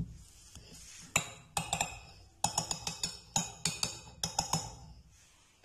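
Metal fork clinking and scraping against a cut-glass bowl while working boiled mashed potatoes, a quick run of sharp ringing clinks, several a second, starting about a second in and stopping a second before the end.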